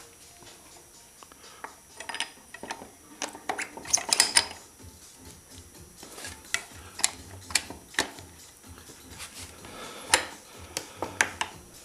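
Scattered metal clinks and knocks as a motorcycle wheel and its axle are handled and fitted back into the bike.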